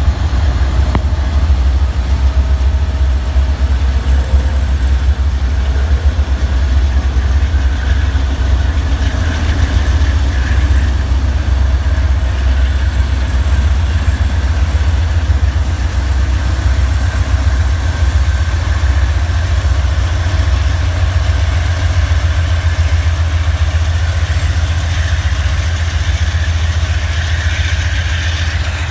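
Diesel-electric freight locomotives idling on a stopped train: a loud, steady low rumble with a faint steady whine above it.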